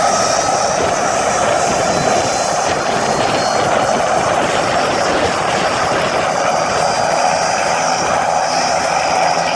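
Bell 206B JetRanger III helicopter's turbine engine running with the rotor turning, a loud, steady noise with a faint whine above it. A low hum comes in near the end.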